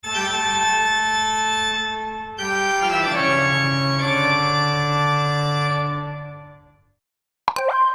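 Electronic lightstick sound effect: a sustained organ-like chord that shifts about two and a half seconds in, slides down in pitch, then fades out. A new electronic tone starts just before the end.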